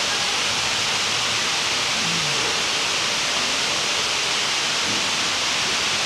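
Water pouring down a tall indoor cascade wall, a four-storey waterfall feature, making a steady, even hiss of falling water.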